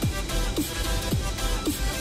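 Electronic dance music with a pulsing bass beat and a falling pitch sweep about twice a second.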